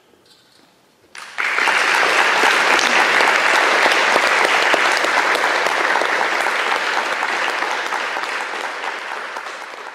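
Audience applauding: it breaks out suddenly about a second in after a brief hush, stays full and even, and eases slightly toward the end.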